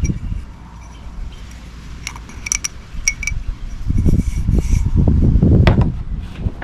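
A few light metallic clinks of small tools and filter parts being handled while the oil filter's O-ring is swapped, then a louder low rumbling handling noise for a couple of seconds.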